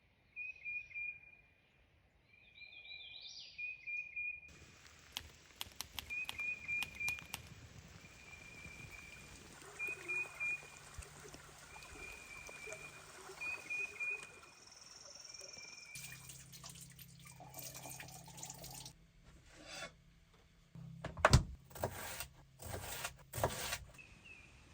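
Small birds chirping over and over with short, high notes, over a steady trickle of running water. From about two-thirds of the way in, a series of sharp knocks and clatter, the loudest a few seconds before the end.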